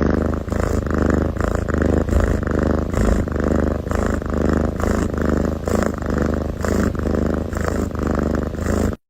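An animal making a low, rhythmic sound, about two pulses a second over a steady low hum, starting and stopping abruptly.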